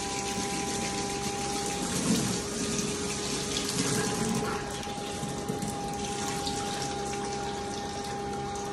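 Kitchen tap running into a bowl of raw chicken pieces as they are washed by hand, water splashing steadily, with a steady hum underneath.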